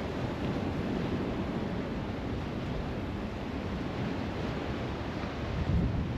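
Steady wind rumbling on the microphone over the wash of surf on the shore, swelling a little near the end.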